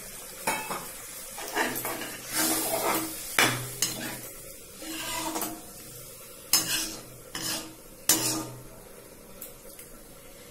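Metal spatula stirring a thin curry gravy in a metal wok, with irregular clinks and scrapes against the pan and a light sizzle from the pot; more water has just gone into the gravy.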